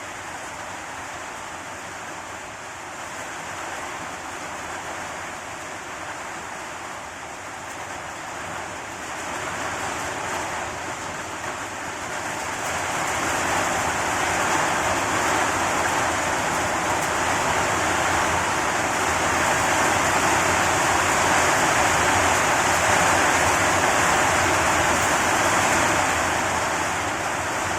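Heavy rain pouring down in a steady rush that grows louder about ten seconds in and stays heavy after that.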